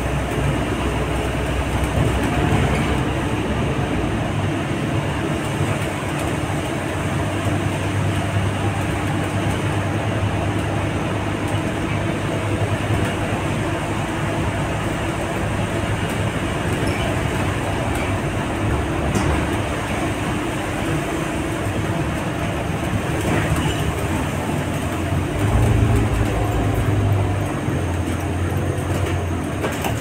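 Cabin noise inside a moving bus: the engine drones steadily under the hiss of tyres on a wet road. The engine note grows louder for a couple of seconds near the end.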